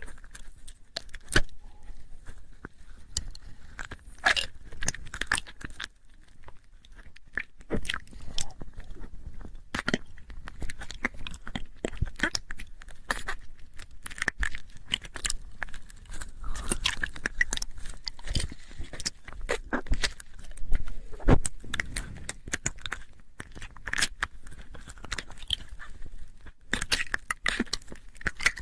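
ASMR mouth sounds: a dense, irregular run of clicks and smacks from lips and tongue, continuing without a break.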